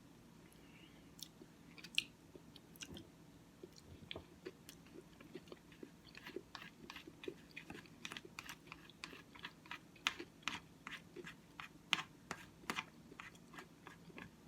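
Close-miked mouth sounds of someone eating oatmeal: chewing with wet clicks and smacks. They are sparse at first and come thick and fast from about six seconds in.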